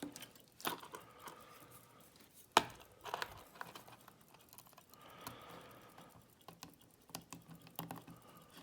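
Small metal clicks and taps of a Schlage pin-tumbler lock cylinder being handled and taken apart, with one sharp click about two and a half seconds in.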